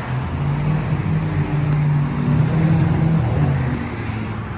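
A motor vehicle's engine running close by, a low steady hum that swells to its loudest about halfway through and then eases off.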